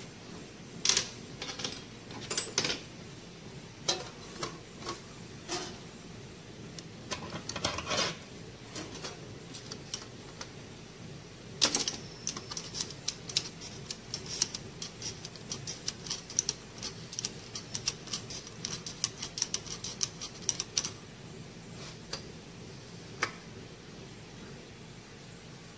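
Steel tools and die parts clinking and clanking against the metal die box of a hose crimping machine during a die change. Scattered sharp clicks, a louder clank about twelve seconds in, then a quick run of light clicks for several seconds.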